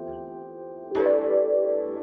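Background music with sustained chords; a new chord comes in about a second in.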